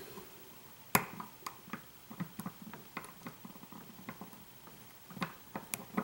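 Lock pick and tension tool working the pins of a pin-tumbler lock cylinder: a sharp click about a second in, then a run of small, light clicks and ticks, with a few more clicks near the end.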